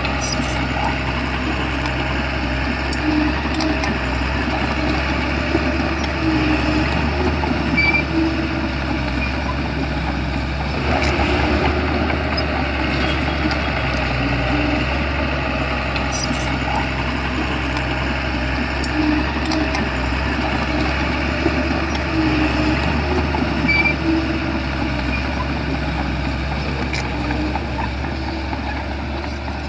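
Shantui crawler bulldozer's diesel engine running steadily under load, with occasional short squeaks and clicks from the working machine.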